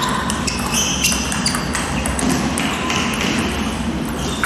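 Table tennis ball clicking off bats and table during a rally, a handful of sharp clicks in the first couple of seconds, then the rally stops, over the steady hum of a large sports hall.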